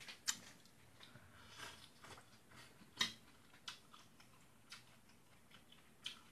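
A person chewing food, with scattered short, sharp clicks; the loudest come about a quarter second in and about three seconds in.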